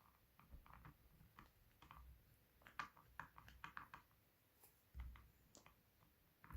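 Faint, irregular clicks and light taps of a small screwdriver on the tiny screws of a Samsung Galaxy Note 3's back frame as they are undone one by one, with a soft low thump about five seconds in.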